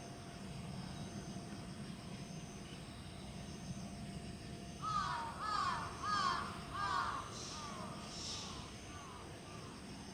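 A crow cawing: a run of about nine caws in quick succession starting about halfway through, the first few strongest, then trailing off, over a faint steady background hum.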